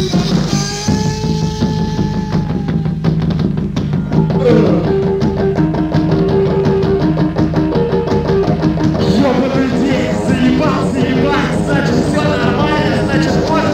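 Instrumental passage of a rock song played by a guitar, bass and drums band. A held note sounds first, then a melody of short stepping notes comes in about four seconds in and grows busier near the end.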